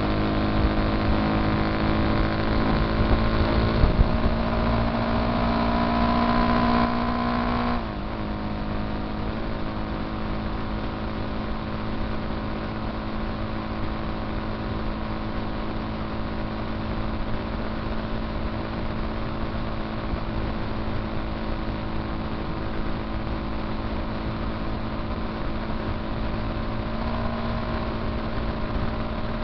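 Motorcycle engine running at highway speed over a steady rush of wind on the microphone. The engine note climbs for a few seconds, drops sharply about eight seconds in, then holds an even cruising note.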